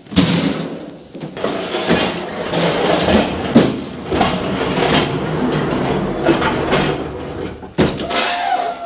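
Pallet jack being pulled across a truck trailer's floor, its wheels rumbling and clattering with repeated knocks as it rolls, and a brief steady whine near the end.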